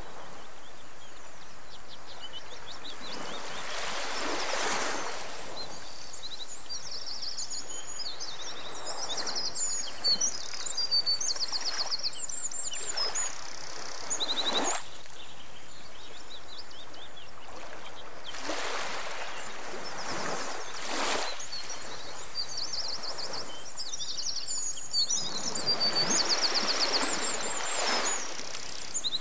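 Outdoor nature ambience: small birds chirping and trilling in quick, high runs over a steady hiss, with a swell of rushing noise every few seconds.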